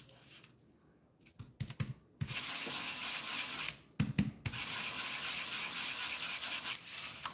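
Paintbrush scrubbed back and forth in gray PVA paint on a plastic palette tray, loading the bristles: a scratchy rubbing in two long stretches with a short break between them, after a few light knocks.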